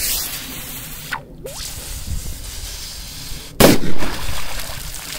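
A firecracker explodes under the river water about three and a half seconds in: one sudden bang with a short rushing tail after it, over a steady hiss.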